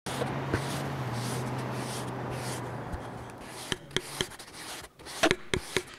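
A steady low hum over background noise that dies away just past the middle, followed by sharp ringing taps in two quick runs of three.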